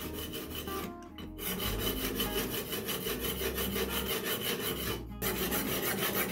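Knife steel rubbed back and forth on a diamond sharpening stone, a rhythmic rasping scrape as a chipped edge near the tip is ground away. The scraping breaks off briefly about a second in and again around five seconds.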